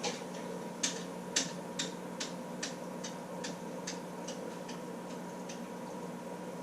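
Steady electrical hum of an aquarium air pump and tank equipment, with sharp clicks a little over twice a second that grow fainter and stop near the end.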